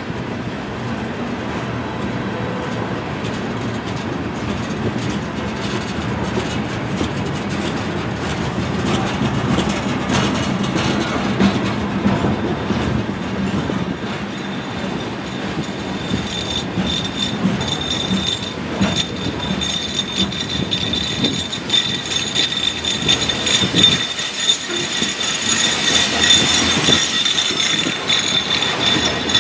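Covered hopper cars of a freight train rolling past, the steady running noise of steel wheels on the rails. About halfway through, a thin, high, steady wheel squeal sets in and grows louder near the end.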